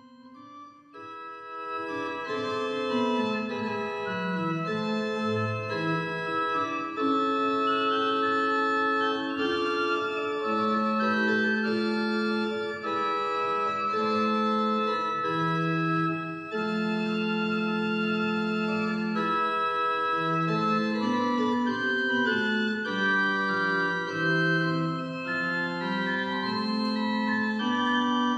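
Church organ playing the prelude: slow sustained chords that swell in over the first couple of seconds and then change step by step.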